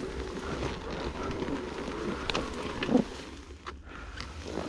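Wind buffeting the microphone, a low rumble with scattered small knocks and one louder knock about three seconds in.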